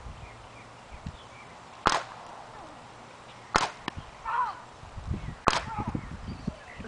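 Paintball gun firing three single shots, each a sharp crack, spaced a little under two seconds apart.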